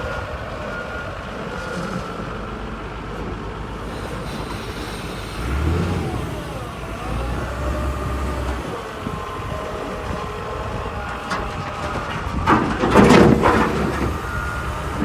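Heavy equipment diesel engine running with a reversing alarm beeping about once a second, typical of the wheel loader backing up. The engine surges under load in the middle, and a louder, rough noise comes in near the end.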